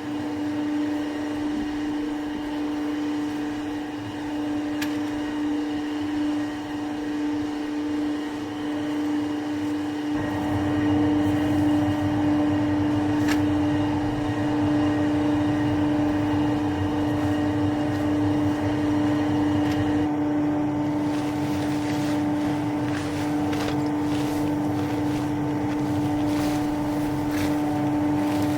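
A steady mechanical drone at one unchanging pitch, with a lower rumble coming in about ten seconds in and light ticks in the last third.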